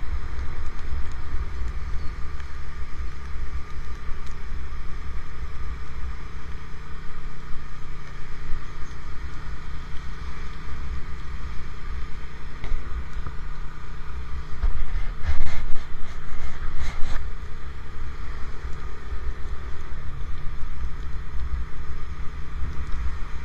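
Wind buffeting the microphone of a camera on a moving motorcycle, over the steady hum of the motorcycle's engine and the hiss of tyres on a rain-wet road. A burst of loud knocks and rubs on the camera comes about fifteen to seventeen seconds in.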